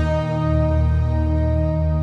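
Slow ambient closing music: long held chords over a steady deep bass.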